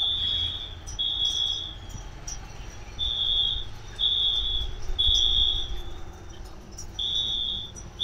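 An electronic beeper repeats a high-pitched beep about once a second, each beep lasting about half a second, with a beat skipped now and then.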